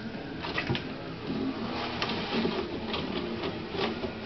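Toilet paper roll turning and rattling on its wall holder as a cat paws at it and pulls paper off, with irregular rustles and tears of paper.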